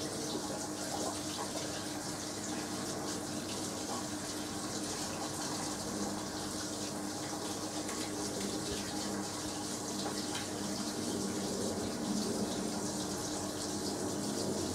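Hoover AXI washing machine taking in water: a steady rush of water into the drum over a constant low hum, during the rinse stage of the delicate programme.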